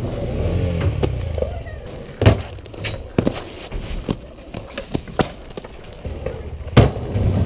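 Aggressive inline skates grinding along the edge of a wooden skatepark box and rolling on asphalt, a low rumble at first, then several sharp clacks of skates hitting and landing.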